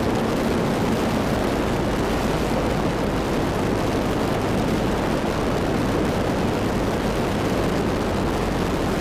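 Zenith STOL CH 750 Super Duty's engine and propeller running at low power in the landing flare, a steady drone mixed with air rushing past the wing-mounted camera.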